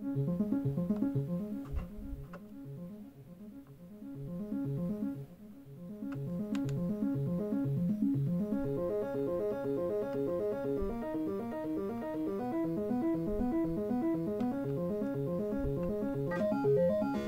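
Korg NTS-1 digital synthesizer playing a fast looping arpeggio of short repeating synth notes. It drops in level about two seconds in and comes back up about six seconds in.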